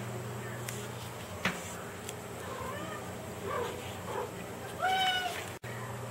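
Domestic cat meowing right next to a phone's microphone: a few soft chirping calls, then one louder, drawn-out meow about five seconds in. A single knock comes about a second and a half in, over a steady low hum.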